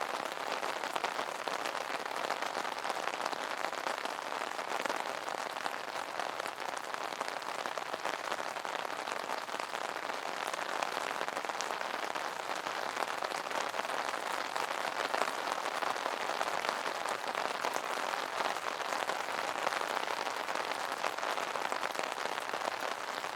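Rain falling on an umbrella: a steady, dense hiss made of many small drop impacts, even throughout.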